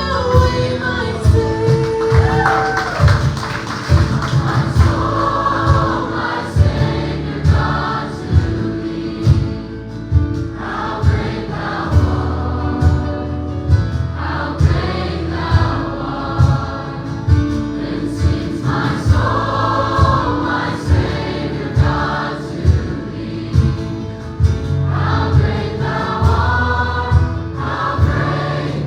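Church choir singing a gospel worship song with band accompaniment over a steady beat.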